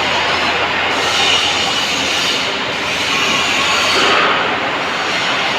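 MIG welder arc crackling steadily as a bead is run on sheet-metal panel.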